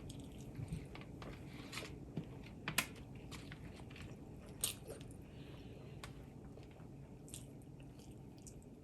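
A person chewing and biting food close to the microphone, with wet mouth clicks scattered throughout. The sharpest clicks come a little under three seconds in and again about halfway through.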